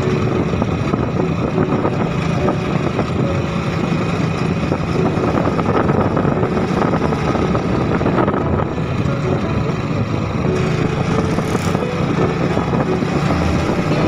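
Motorcycle engine running steadily at cruising speed, heard from the rider's seat mixed with wind rushing past.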